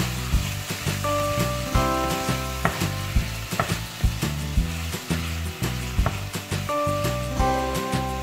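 Sliced onions and tomatoes sizzling in oil and ghee in a pressure cooker pan, stirred and scraped with a wooden spoon, with frequent sharp clicks of the spoon against the pot.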